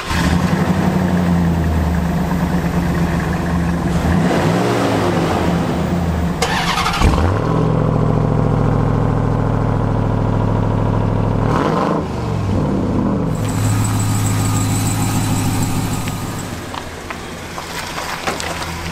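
A 2001 Dodge Ram 1500's 5.9-litre Magnum V8 starts and idles, blipped up a couple of times. About seven seconds in, the 2021 Ram TRX's supercharged 6.2-litre V8 starts and idles with a lower, heavier note, revved briefly around twelve seconds before the idle eases off near the end.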